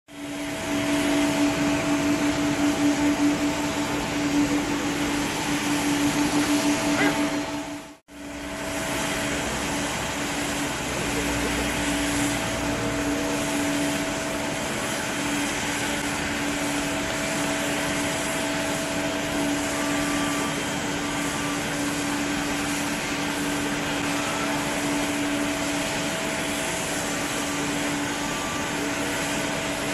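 Jet airliner engines running at taxi power, a Boeing 747-8 with four GEnx turbofans: a steady hum with a constant low tone over a wash of hiss. The sound cuts out briefly about eight seconds in, and is a little louder and more pulsing before the cut.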